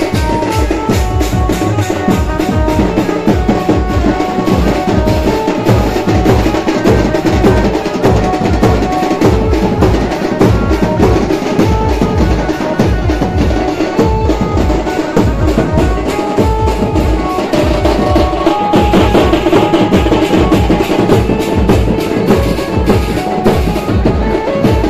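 Pad band playing loud, fast festival drumming: dense, even drum strokes with heavy low beats, and a melody of short held notes above the drums.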